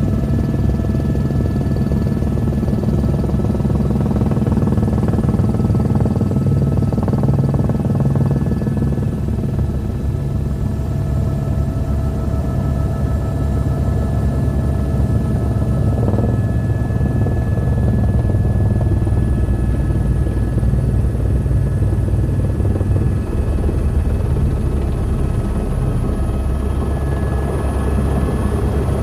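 Helicopter rotor and turbine running steadily, with rapid rotor beating down low and a thin high turbine whine that rises slightly in pitch over the last several seconds.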